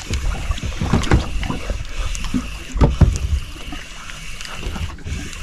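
Open fishing boat on the sea: wind and water noise against the hull, with heavy low thumps about a second in and again around three seconds.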